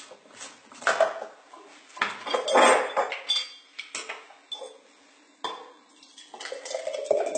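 Knocks and clatter of a blender cup being taken off its base and handled on a wooden board. Near the end, thick fruit smoothie pours from the cup into a glass jar.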